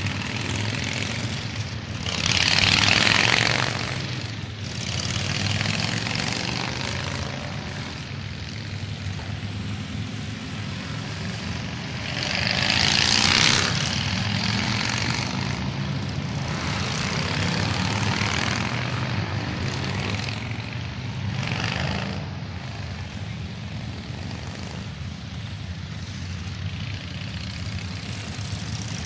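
Cruiser motorcycles riding past one after another over a steady low engine rumble, each engine swelling and fading as it goes by. The loudest pass-bys come about three seconds in and again around thirteen seconds.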